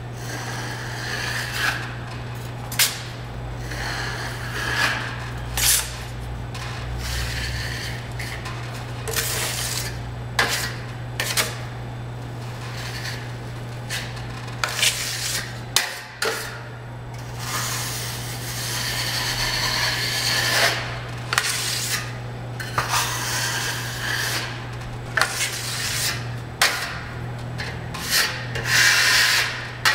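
Drywall knife spreading joint compound over a ceiling in repeated scraping strokes, with sharp clicks and taps of the blade between strokes. A steady low hum runs underneath.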